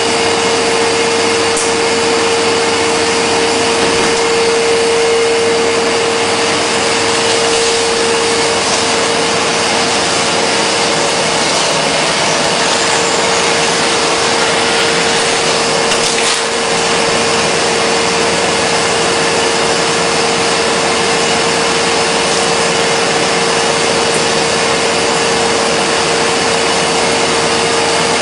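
Commercial steam rice cabinet running: a steady, loud rushing noise with a constant mid-pitched hum.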